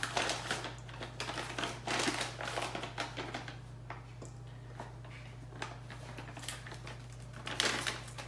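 Crinkling of a paper flour bag, with the scrapes and taps of a measuring cup scooping coconut flour and tipping it into a bowl, over a steady low hum. The loudest rustle comes near the end.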